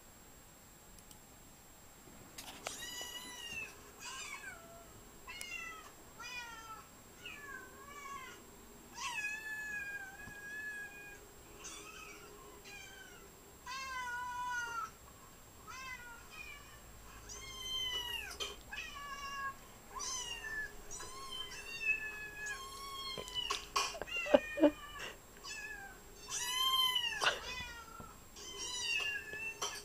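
Cats meowing, played from a YouTube video through a laptop's speakers: many short meows, one after another, starting about two and a half seconds in, with a few longer calls that rise and fall.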